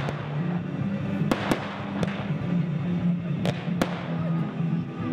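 Aerial firework shells bursting overhead: a series of sharp bangs, about five of them, two close together a little over a second in and two more near the end. Music plays steadily underneath.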